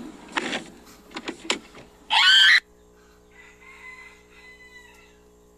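A car door slammed shut with a sudden hit, followed by a few short rattling clicks, then a loud, shrill, wavering cry lasting about half a second.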